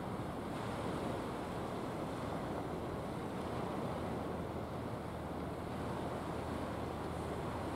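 Small waves breaking and washing up a pebbly shore in a steady, unbroken rush, with a faint low steady hum underneath.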